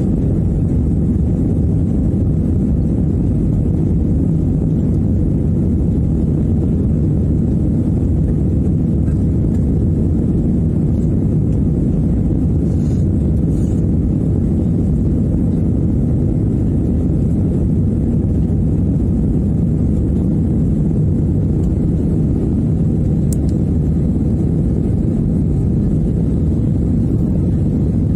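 Steady low roar of jet engines and rushing air heard inside an airliner cabin as the plane climbs after takeoff.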